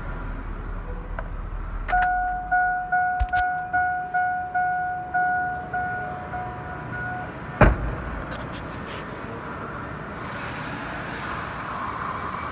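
A 2002 Chevrolet Silverado 3500 truck's dashboard warning chime dings about a dozen times in quick succession, then stops. A moment later a single loud thunk follows, typical of the truck's door being shut.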